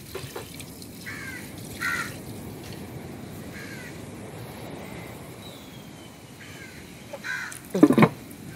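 Crows cawing about five times, spread out, over a low steady hiss. Near the end, a couple of loud short knocks.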